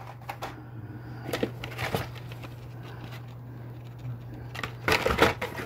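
Blister-carded Hot Wheels cars being handled in a cardboard case: plastic blisters and card backings rustling and clacking irregularly, with the loudest cluster near the end, over a steady low hum.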